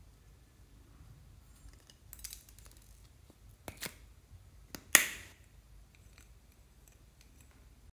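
Small plastic slime tub being twisted open: a few soft crackles and clicks, then a sharp snap about five seconds in as the lid comes off.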